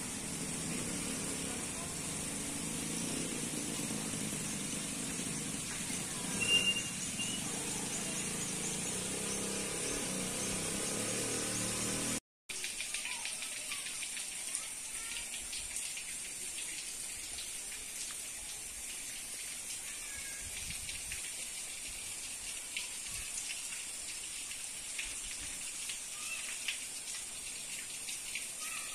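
Steady outdoor background hiss, with a low rumble under it that drops out at a cut about twelve seconds in. A few short high chirps sound over the hiss.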